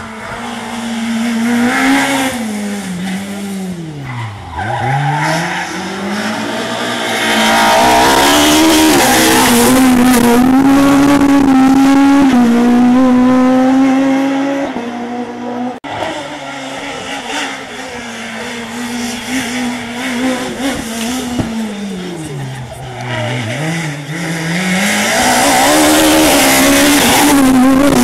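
Two rally cars taking a hairpin one after the other. Each time the engine note falls steeply as the car slows for the bend, then climbs back to a loud, high, steady note as the driver accelerates out.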